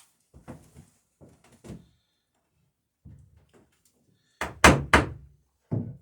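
Hammer blows: a few faint knocks, then three sharp strikes in quick succession about four and a half seconds in and one more near the end.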